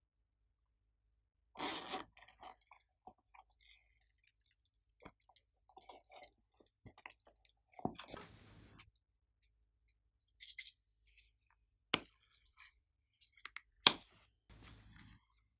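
Slime being squished and mixed by hand: irregular sticky clicks and crackles with short pauses between them, the loudest a sharp click near the end.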